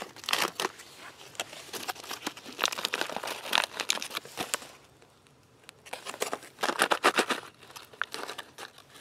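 Crinkling of a foil-laminate MRE snack pouch of jalapeño cashews as it is handled and opened, in two spells with a short pause about five seconds in, the second as the cashews are shaken out into a hand.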